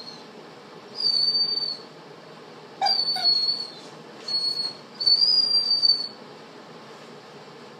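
A dog whining: four high, thin, drawn-out whines, each about half a second to a second long.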